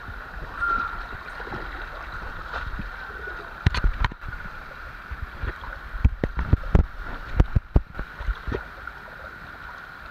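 Water running steadily down a waterslide flume, with a burst of close thumps and knocks in the middle, several in quick succession.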